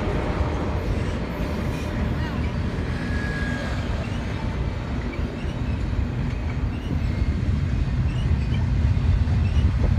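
Double-stack intermodal freight train's container well cars rolling past, a steady low rumble of steel wheels on rail that grows a little louder near the end.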